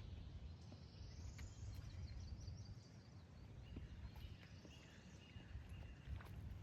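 Faint outdoor ambience: a steady low rumble with a few faint bird chirps and scattered light ticks.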